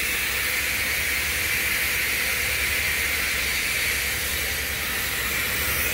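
Steady hissing noise over a low rumble from a crane running while it lifts a big rock breaker on its hook.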